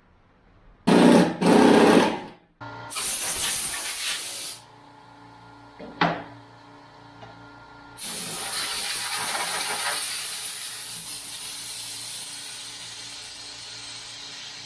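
Woodshop work noise: two loud rasping bursts and a hiss in the first few seconds, a sharp click about six seconds in, then a power tool starts up about eight seconds in and runs steadily, easing off slowly.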